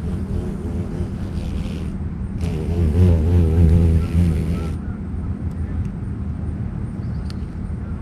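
Giant cicada killer wasp buzzing in flight close to the microphone, its wing hum wavering up and down in pitch and loudest about three to four seconds in, over a steady low rumble.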